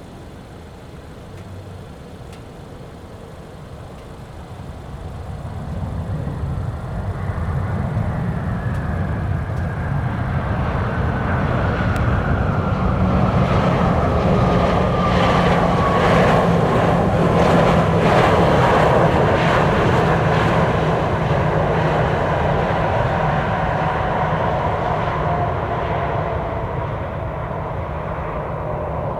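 Airbus A320-200 jet airliner passing, its engine noise swelling and then easing, with a high engine whine that falls steadily in pitch as it goes by.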